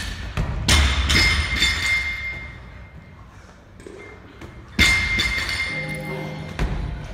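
Heavy thuds of gym equipment landing, each with a ringing metallic tail: a cluster about a second in and another strong one about two-thirds in, over background music.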